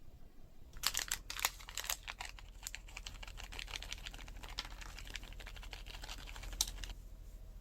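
Slime being squeezed and played with by hand, giving a dense run of sharp crackling and popping clicks that begins about a second in and stops shortly before the end, with the loudest snaps near the start.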